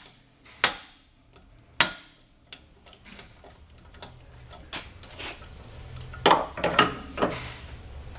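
Hammer striking a hand impact driver set in the number 50 Torx retaining bolt of a brake rotor, to break the bolt loose: sharp metal-on-metal blows with a brief ring. Two loud strikes come in the first two seconds, then lighter knocks, and a quick run of three strikes near the end.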